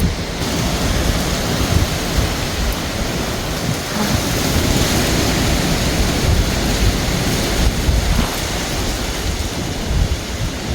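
Hurricane wind and heavy rain: a steady rushing noise, with gusts buffeting the phone's microphone in low rumbles.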